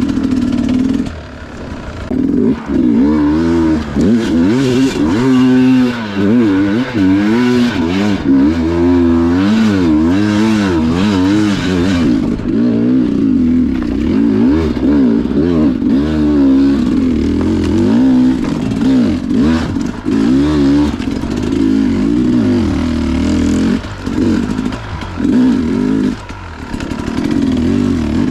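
Sherco two-stroke dirt bike engine revving hard in second gear, the pitch rising and falling again and again as the throttle is worked, with a few brief drops in revs in the last few seconds.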